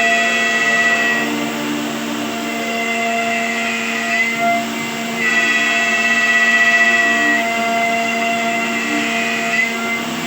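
Electric woodworking machine running with a steady whine. Its upper tones drop away and return several times as the load on it changes.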